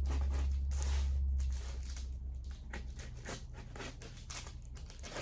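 Cardboard packaging of a lathe chuck being torn and opened by hand, a string of rustles and tearing sounds. A steady low hum underneath drops away about a second and a half in.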